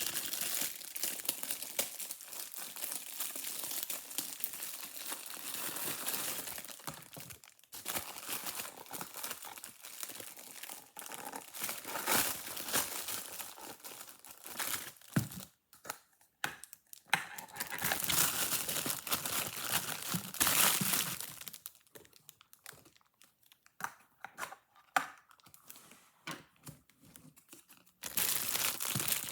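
Plastic crinkling and rustling as it is handled, in uneven stretches with a couple of quieter pauses.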